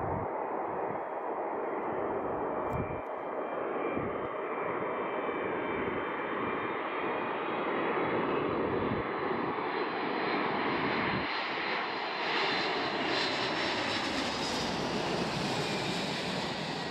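Jet engines of a twin-engine wide-body airliner on final approach with its landing gear down, drawing near and passing low overhead. A steady rush grows brighter and fuller as it closes in, with a thin high whine running over it.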